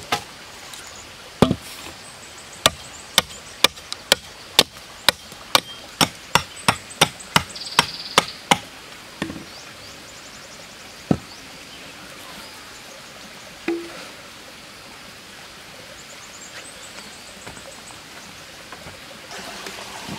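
Hatchet chopping a wooden pole to a point: a run of sharp chops about two a second for several seconds, then a few single strokes.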